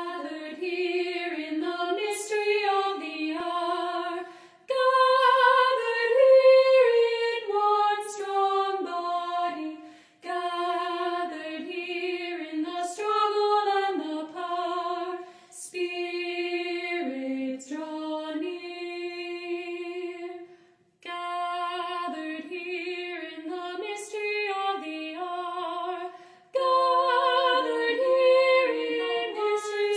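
Unaccompanied female singing: a slow melody sung in phrases of several seconds, with short pauses between them.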